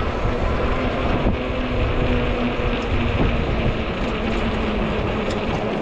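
Riding noise of an Ecotric 20-inch folding fat-tire e-bike under way: wind buffeting the microphone and steady rolling noise, with a faint steady whine underneath.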